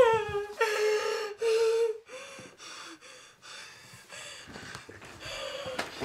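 A woman sobbing: two drawn-out wailing cries in the first two seconds, then quieter gasping, catching breaths.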